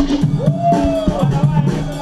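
Loud breakbeat-style battle music: a vocal line with a long held note over a bass line and drums.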